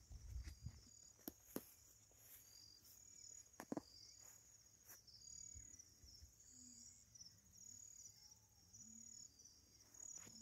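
Faint, steady high-pitched chirping of insects, with a few soft clicks scattered through it.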